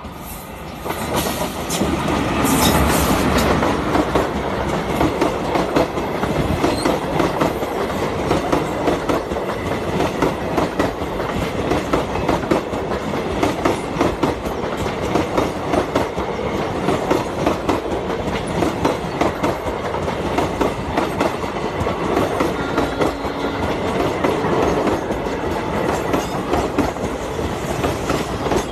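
Indian Railways train running at speed, its wheels clattering rapidly and continuously over the rail joints, in a loud, steady rush that swells up about a second in.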